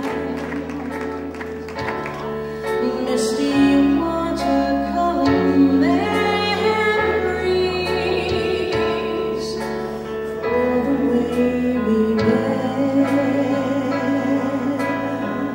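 A woman sings into a microphone with vibrato on long held notes, over instrumental accompaniment with a bass line that changes note every second or two.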